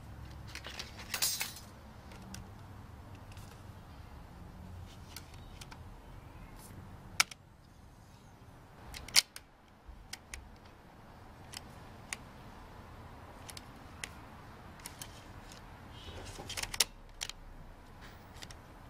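Scattered small clicks and rattles from the mechanism of a Sony OA-D34V 400K floppy drive being worked by hand with a floppy disk in it, its dried grease freshly softened with silicone spray. The sharpest clicks come about seven and nine seconds in.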